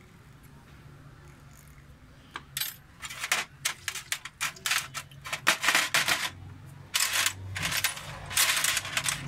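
Small steel diesel injection pump parts clinking and clattering against each other and a metal parts tray. A rapid, irregular run of sharp metallic clicks starts about two seconds in.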